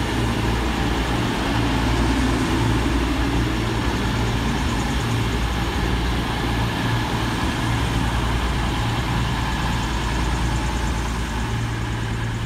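CrossCountry Class 221 Super Voyager diesel-electric multiple unit arriving and running past, its underfloor Cummins diesel engines giving a steady low drone over wheel and rail noise, easing slightly near the end as it draws away.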